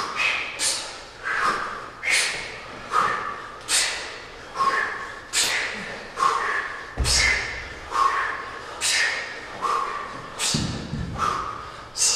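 Sharp, hissing breaths pushed out in rhythm by people doing kettlebell swings, about one and a half a second, each breath timed to a swing. Two dull thuds come partway through.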